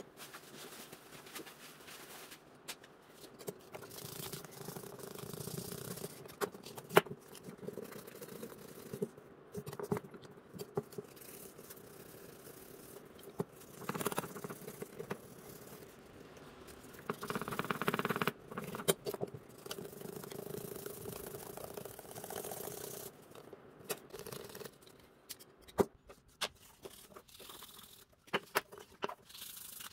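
Hand work on small parts of a model car: scraping and rubbing with scattered sharp clicks and taps, over a faint steady hum.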